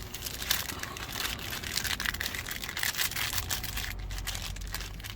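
Irregular crinkling and rustling of cardboard and plastic packaging being handled close up.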